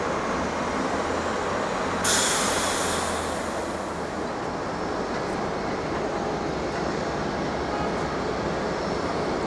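Steady roar of jet aircraft engines on an airport apron, with a sudden high hiss about two seconds in that fades away over the next two seconds.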